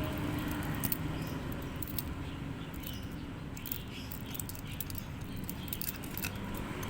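Small, irregular clicks and scratches of tools working on an opened wristwatch, over a steady low background hum.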